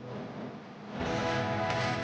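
Background music: a band-backed song that thickens into full instrumentation about a second in.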